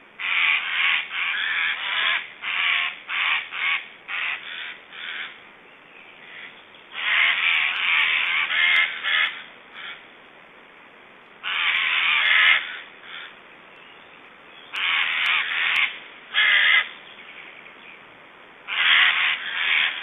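Black stork nestlings giving harsh, rasping hiss-like calls in bursts: a quick run of short calls over the first few seconds, then four longer drawn-out rasps of one to two seconds each.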